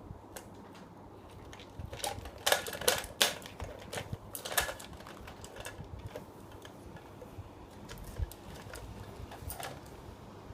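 A quick, irregular run of sharp taps and clacks, bunched about two to five seconds in, then a few scattered lighter taps.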